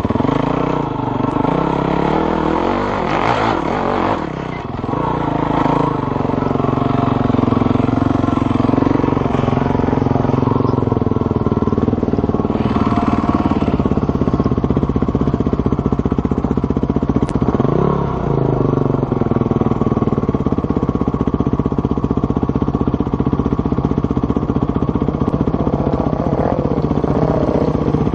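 Dirt bike engine running steadily at low revs, heard from the rider's own bike, with brief rises in revs a few times as it picks its way over rock.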